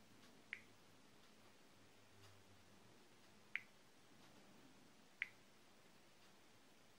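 Three short, sharp clicks, about half a second, three and a half and five seconds in, as an LG G3 smartphone's touchscreen is tapped through its menus; otherwise near silence.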